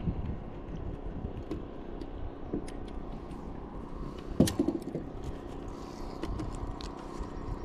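Wind buffeting the microphone as a steady low rumble, with small clicks and taps from handling a caught crappie and unhooking it, and one sharp knock about four and a half seconds in.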